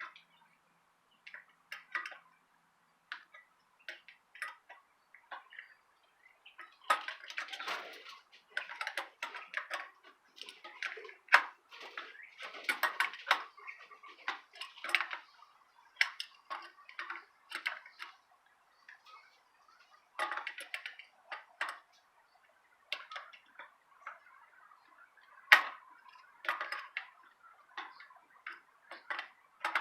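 Irregular light clicks, ticks and short metallic rattles of hands-on work truing a bicycle wheel, with spokes being tightened and loosened and the wheel turned. The clicks are busiest in the middle stretch, with one sharper click near the end.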